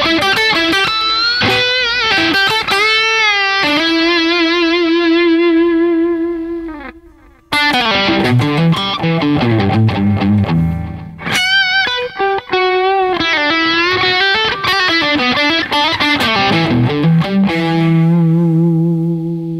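Yamaha Pacifica electric guitar through a Line 6 Helix, playing an overdriven lead line of bent notes and long held notes with vibrato. There is a short break about seven seconds in. The gain is set by rolling the volume pedal up, where the tone turns high-gain.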